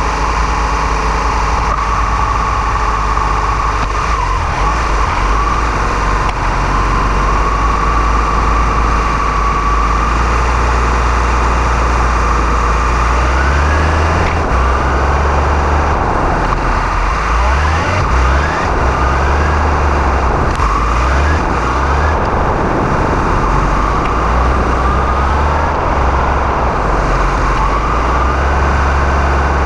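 Motorcycle engine running as the bike rides along, with a steady low rumble. From about halfway through it rises in pitch again and again as it revs up.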